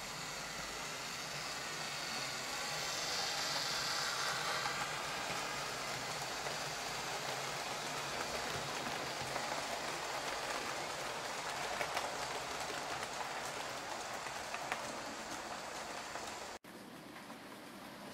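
00 gauge model trains, among them a Lima Class 59 diesel model, running over the track: a steady rushing rattle of small wheels on rail joints with motor whir, getting louder around three to four seconds in. About a second and a half before the end it cuts off abruptly to a quieter running-train sound.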